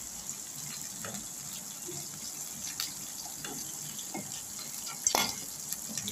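Chicken pieces deep-frying in oil in an aluminium kadai, a steady sizzle, with a perforated metal skimmer scraping and clinking against the pan as the fried pieces are scooped out. One louder metal knock about five seconds in.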